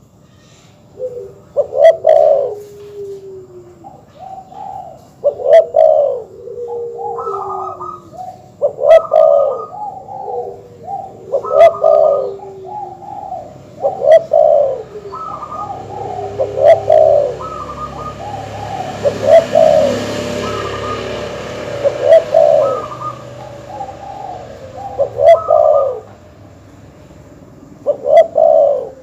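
Doves cooing in repeated multi-note coo phrases, one every two to three seconds. This is a master call of the kind used as a lure to provoke rival male doves. A faint hiss swells briefly about two-thirds of the way through.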